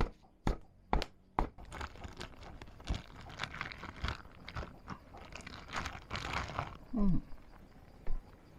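Four sharp knocks about half a second apart, then irregular crunching and rustling, with a short falling squeak about seven seconds in.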